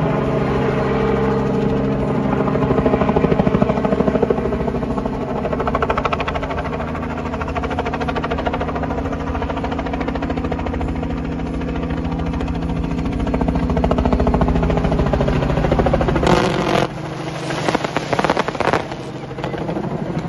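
Helicopter engine and rotor running steadily, its pitch shifting slightly, while fireworks mounted on it spray sparks. From about three-quarters of the way in there are several seconds of sharp crackles and bangs from firework bursts.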